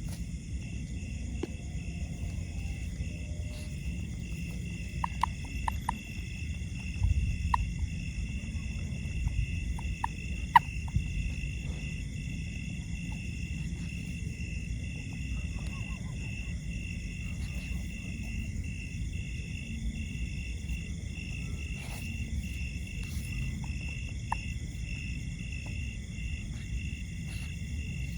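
A steady outdoor insect chorus: overlapping high trills that pulse several times a second, over a low rumble. A few sharp clicks come between about five and eleven seconds in, one louder snap near the middle.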